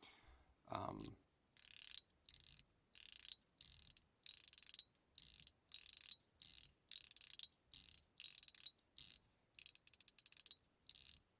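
Metal fidget toy worked back and forth, its stainless steel balls rolling and clicking inside it: a regular train of short rasping strokes, about two a second, each with a faint metallic ting.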